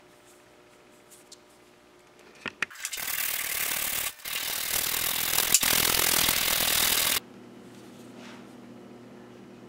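Sanding sponge rubbed hard over a wooden knife handle, a dense scratchy sanding noise lasting about four seconds with a brief break partway through, stopping suddenly. A few light clicks of handling come just before it.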